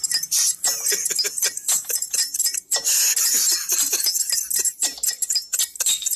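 A movie trailer's soundtrack playing through the small earpiece speaker of a Dacom K6P Bluetooth headset held close to the microphone: a thin sound with almost no bass, full of quick clicky high-pitched sounds.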